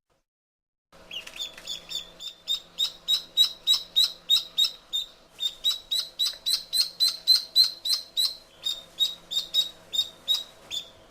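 Duckling peeping: a rapid run of short, high peeps, about three to four a second, with a couple of brief breaks.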